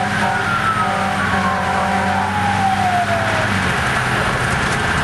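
Fire engine siren heard from inside the cab, its pitch falling slowly over about three seconds as it winds down, over the steady running of the truck's Detroit Diesel engine.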